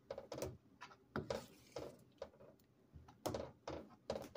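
Metal ladle stirring thick soup in a stainless steel pot, knocking and scraping against the pot in a run of irregular clicks, about two a second.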